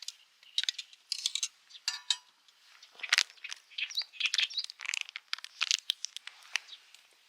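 Food cooking over a campfire, crackling and popping in irregular sharp snaps that grow busier about halfway through.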